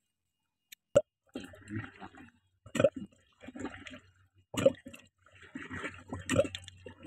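Handling noises at the drain bucket: a plastic funnel and bucket being set in place, with four sharp knocks about two seconds apart amid rustling and scraping.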